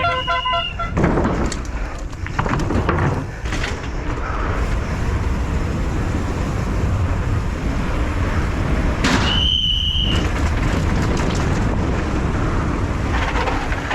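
Downhill mountain bike ridden fast over a rough course: a steady rumble and rattle of tyres, chain and frame, with scattered knocks. About nine seconds in the rattle drops away for under a second while a brief high steady tone sounds.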